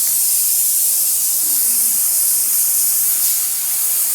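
Steam bed-bug killer hissing steadily as it releases a continuous jet of steam.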